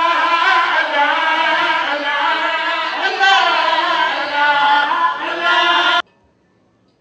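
Men's voices singing a devotional chant together, one reciter at the microphone leading, cutting off abruptly about six seconds in; near silence follows.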